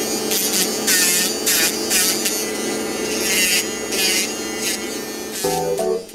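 Promed 520 de Luxe electric nail file running with a steady motor hum, its sanding cap grinding an artificial nail in repeated rasping strokes as it touches and lifts off. Keyboard music comes in near the end.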